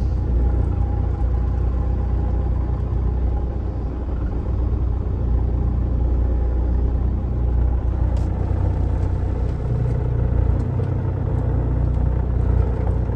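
Semi truck's diesel engine running as the truck rolls at low speed, heard from inside the cab: a steady low rumble that strengthens slightly about ten seconds in.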